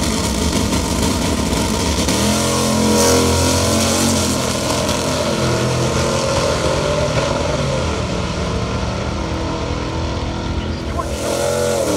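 Two muscle cars launching off the drag strip start line at full throttle and running down the track side by side. Their engine note climbs, breaks at each gear change and climbs again.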